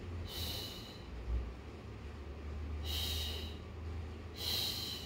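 A woman breathing out forcefully in short hissing breaths, three of them a second or two apart, in time with the twists of a seated Pilates spine rotation. A steady low hum runs underneath.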